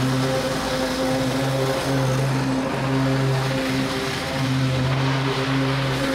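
Gasoline engine of a commercial walk-behind lawn mower running steadily under load as it cuts tall, overgrown grass.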